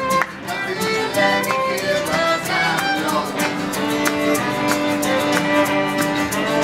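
Folk band playing an instrumental stretch of a song: a fiddle carries the melody in held and moving notes over a steady beat.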